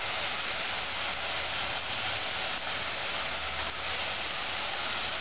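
Masala paste with spice powders frying in hot oil in a steel pot, a steady sizzle as it is stirred with a spoon.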